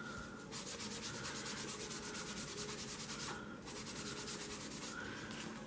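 A craft sponge rubbing ink onto embossed cardstock: a soft, scratchy rasp of quick repeated strokes, with a brief pause a little past halfway.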